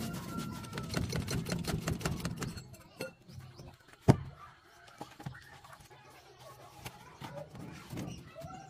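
Rattling and clattering of work around a farm thresher on a jack, then one sharp knock about four seconds in as a heavy wooden log is set down, followed by a few small scattered knocks.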